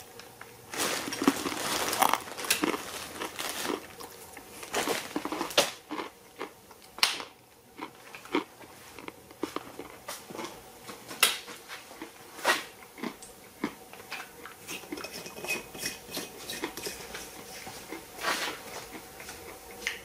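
Irregular clicks, clinks and light knocks of metal parts and tools being handled on a workbench around a vacuum-tube transmitter. Faint steady tones come in about halfway through.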